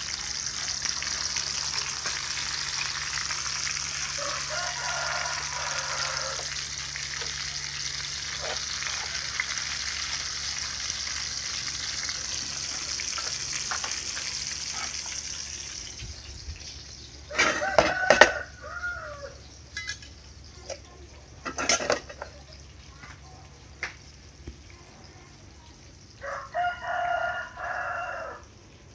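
Jackfruit pieces sizzling in hot oil in a frying pan, a steady hiss that stops about halfway through. After that a rooster crows loudly, once a little past the middle and again near the end.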